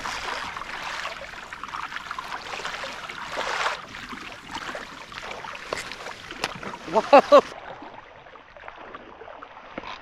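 Water sloshing and splashing against a fishing kayak's hull, with a few sharp clicks about six seconds in. A man's shout of "Whoa!" about seven seconds in is the loudest sound.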